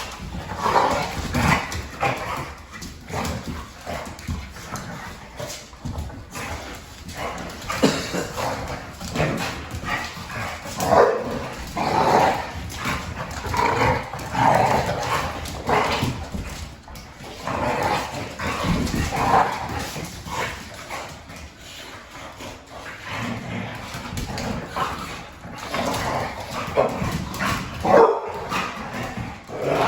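Pit bull–type dog barking repeatedly in uneven bursts.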